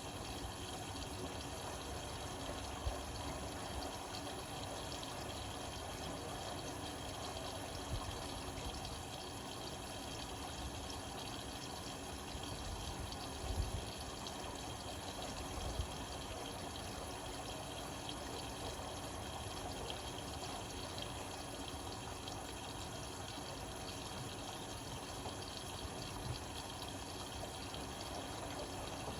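Indesit Innex BWE 91496X washing machine with water running and splashing inside it, a steady rush with a few light knocks.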